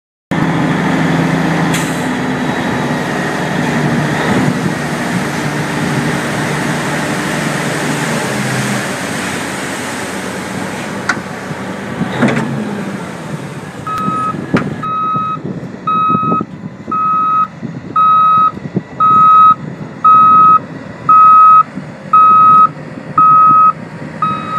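Heavy diesel equipment hauling sand: the engine runs loud through the first half, then a backup alarm beeps steadily, about once a second, as the machine reverses.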